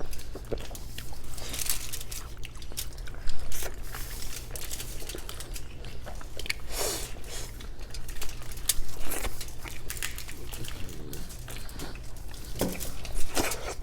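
People eating: chewing and biting, with scattered crunches and sharp clicks over a steady low hum.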